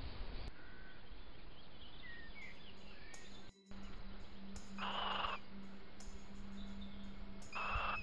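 Little owl giving two harsh, shrill calls, one about five seconds in and a shorter one near the end. Before them, faint high chirps of small birds.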